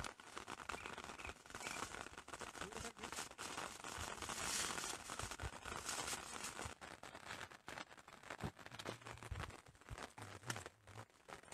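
Thin plastic bag crinkling and rustling as it is handled, with scattered short clicks and knocks.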